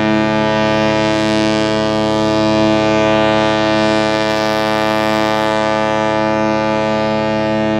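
Ship's horn sounding one long, steady blast, a deep pitched tone with many overtones.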